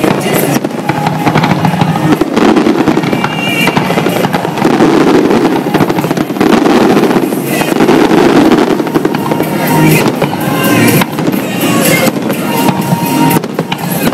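Aerial fireworks bursting in a dense, continuous barrage of booms and crackles.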